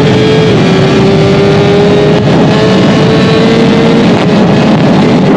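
1000cc inline-four superbike engine running at high revs, its pitch held nearly steady with a small drop about half a second in and a slow rise after.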